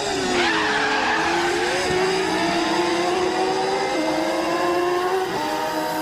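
Cartoon insect flight buzzing of a racing dragonfly and wasp: steady droning tones mixed to sound like racing engines. The pitch swoops in the first second, then one tone holds steady while a higher one slowly climbs, with small jumps in pitch after about four and five seconds.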